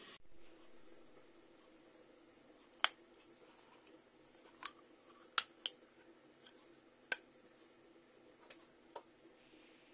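A handful of short, sharp plastic clicks and taps as the blue screw cap of a plastic cream bottle is twisted off and handled, over a faint steady hum.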